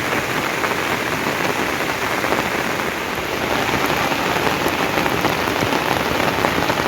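Steady heavy rain falling, a dense even hiss of many drops striking a surface.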